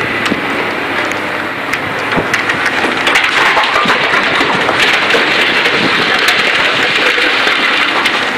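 Excavator running as it empties a bucket of rock into a dump truck's bed. From about two to three seconds in, the stones clatter and knock into the bed for several seconds.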